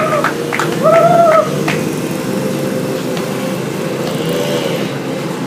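Basketball bounced a few times on a concrete court in the first two seconds, over the steady hum of an engine running. About a second in, a loud high-pitched tone is held for about half a second.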